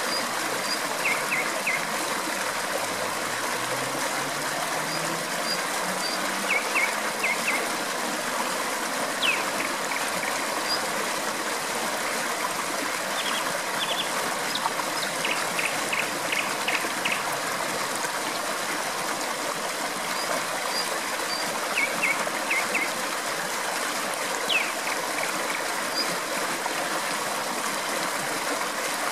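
Steady rush of flowing water, with a nightingale singing over it in short phrases of quickly repeated high notes and a few quick rising whistles, several times through.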